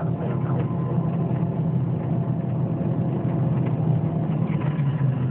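Steady engine and road noise heard from inside a moving vehicle travelling along a highway.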